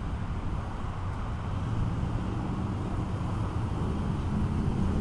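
Steady street traffic noise from passing cars, a continuous low rumble.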